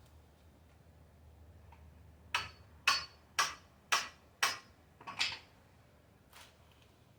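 Hammer blows on a screwdriver and coconut, six sharp knocks about two a second, then one faint tap.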